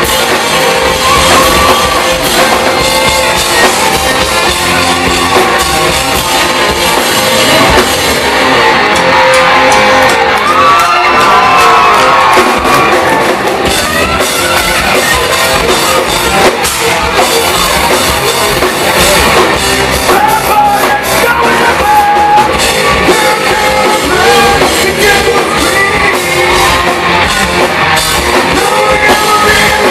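Live rock band playing loud, with a singer over electric guitars and a drum kit, recorded from the crowd in a club hall.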